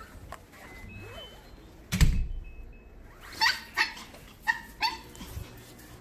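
A dog barking four short, sharp times in quick succession, excited at the prospect of a walk. A single thump sounds about two seconds in, just before the barks.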